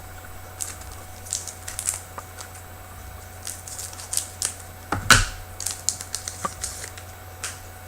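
Hockey trading cards being flipped through and handled: light, irregular clicks and snaps of card stock, with one louder snap about five seconds in.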